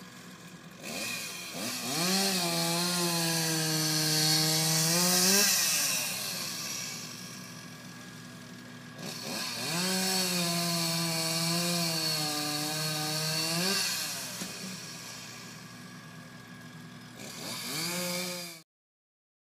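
Chainsaw cutting through the trunk of a fallen plane tree. Each time it revs up, its pitch drops and holds while the chain is in the wood, then climbs again as it comes free. There are two long cuts and a shorter third one near the end, heard through a window pane.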